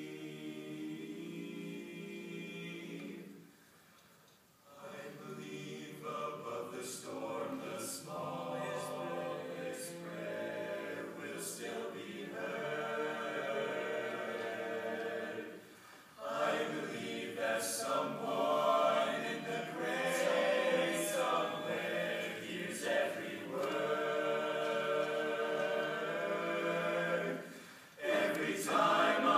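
Male a cappella group singing in close harmony, holding long chords. The singing breaks off briefly about four seconds in, and again for a moment around the middle and near the end.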